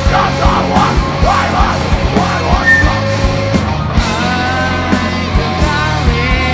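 Live rock band playing loud: distorted electric guitars, bass guitar and drums with a regular kick-drum beat. There are shouted vocals over the first few seconds, and held guitar notes in the second half.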